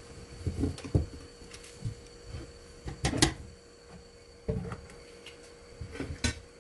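Large aluminium cooking pot handled on a gas stove: a string of dull knocks and scrapes as it is lifted and tilted by its handle and set back down, the loudest clank about three seconds in.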